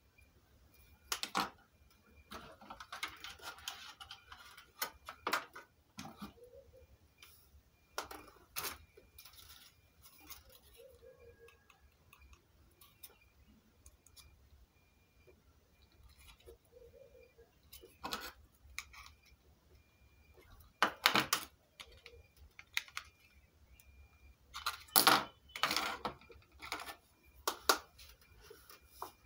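Small plastic and metal electronic parts being handled and put down on a wooden desk: scattered clicks and clatters, the loudest about two-thirds of the way through and near the end.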